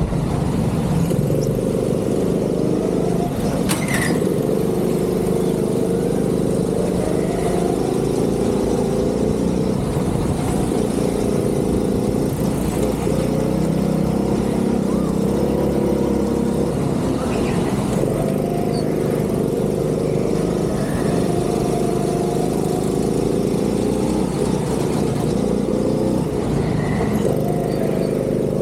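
Go-kart engine running hard, its pitch climbing and dropping repeatedly as the driver gets on and off the throttle through the corners. A sharp tap sounds about four seconds in.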